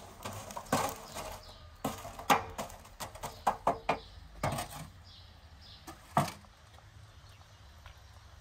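An irregular string of sharp knocks and clatters, about a dozen over five seconds, then only faint background.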